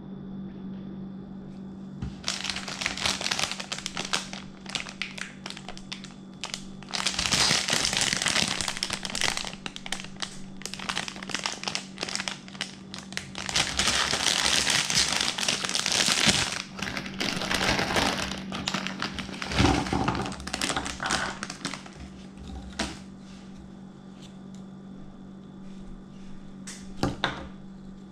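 Plastic snack bag being pulled open and handled, crinkling and crackling in long stretches with two loudest spells. It then quiets to light rustling with a few sharp clicks near the end. A steady low hum runs underneath.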